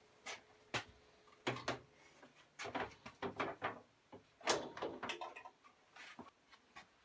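Irregular light clicks, knocks and rustling from handling the boiler's power cord as it is unplugged.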